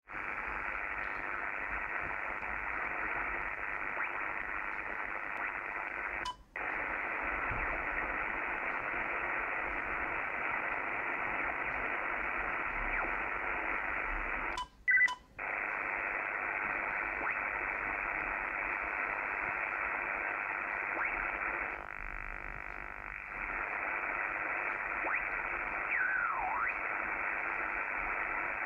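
HF band noise received on a Kenwood TS-850SAT transceiver: a steady hiss of static, muffled with no highs. It cuts out briefly about 6 seconds in and twice around 15 seconds in, dips quieter around 22 seconds, and a short falling whistle sounds near 26 seconds.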